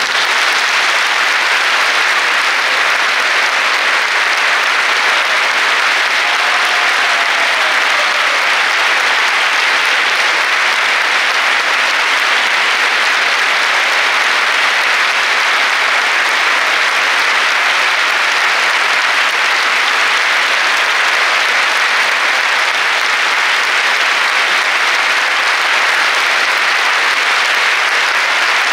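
Theatre audience applauding steadily in a sustained ovation at the end of a piece.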